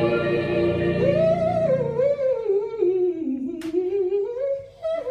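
A held gospel chord ends about a second in, and a solo male voice sings a slow, wavering melismatic run that slides down in pitch and climbs back up, with a brief break near the end.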